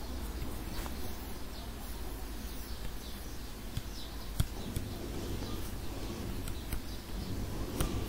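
Quiet room tone: a steady low hum and faint hiss, with a few faint clicks, the sharpest about four and a half seconds in.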